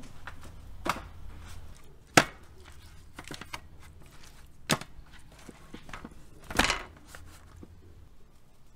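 Raw salmon steaks being handled and turned over in a stainless-steel tray: a few separate sharp knocks and soft slaps, about four clear ones, the loudest about two seconds in.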